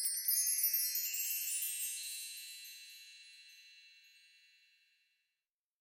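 A shimmering chime sound effect: a cluster of high tinkling notes struck together, ringing on and fading away over about five seconds.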